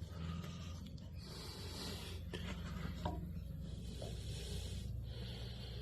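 A marking tool scratched along wood in several faint strokes, marking out cut lines on timber.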